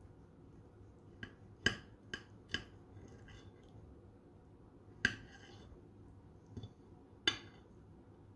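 Metal fork and knife clinking against a ceramic plate while cutting a stuffed pepper: a series of short, sharp clinks at irregular intervals.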